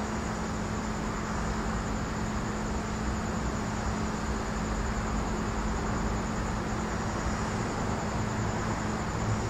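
Steady night-time outdoor ambience: a continuous hiss with a low, even hum and a high, steady insect trill.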